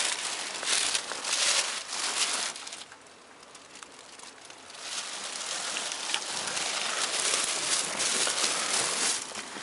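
Rustling and crinkling of thin plastic film covering the car seats as someone moves against them, dropping away for a couple of seconds about three seconds in, then resuming.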